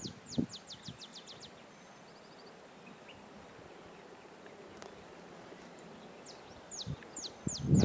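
A songbird sings runs of high downslurred whistled notes that speed up into a quick series, once at the start and again near the end, over a faint outdoor background. Just before the end there is a brief loud, low thump.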